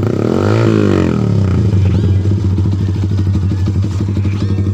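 Motorcycle engine running through a replica Akrapovic GP-style exhaust pipe with its silencer removed: one quick throttle blip about half a second in that rises and falls back within a second, then a steady idle.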